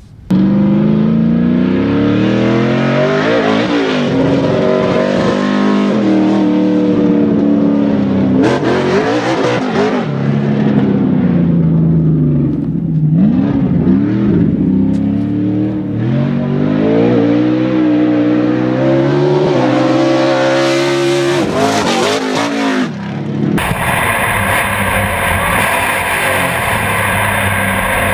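Short course race truck's engine revving up and down again and again as the truck is driven hard, its pitch climbing and dropping with each throttle change. Near the end the sound switches abruptly to a steadier, harsher engine-and-wind noise picked up on board the truck.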